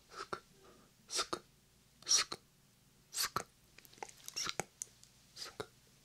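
Whispered 'sk-sk' mouth sounds made close into a binaural microphone: short hisses, each ending in a sharp click, about one a second.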